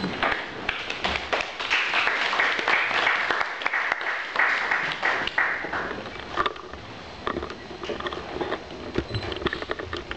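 Audience applauding: dense clapping for about six seconds that then thins out to scattered claps.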